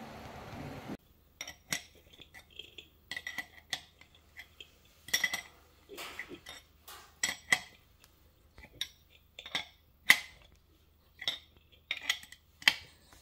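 Steel wrench clicking and clinking against a nut or fitting on the metal top plate of a rubber air-suspension bag as it is turned: many short, irregular metallic clicks, often in small clusters.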